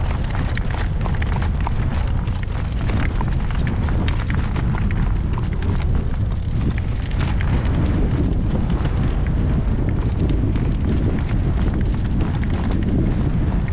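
Strong wind buffeting the microphone: a steady, heavy low rumble, with light clicks and knocks scattered through it.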